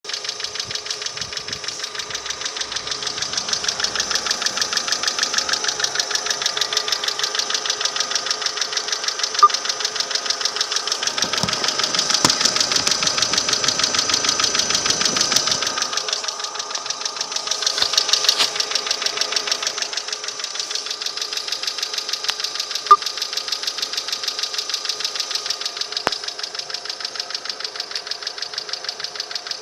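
Engine idling with a rapid, even ticking knock from the valvetrain: the hydraulic lash adjusters (hydraulic lifters) clattering. Two sharper single clicks stand out, one about a third of the way in and one about three quarters in.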